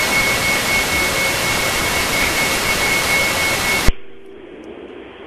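FM radio static: a loud, even hiss with a thin steady whistle running through it. About four seconds in it cuts off with a sharp click as the station's signal comes on the air, leaving a much quieter, muffled sound.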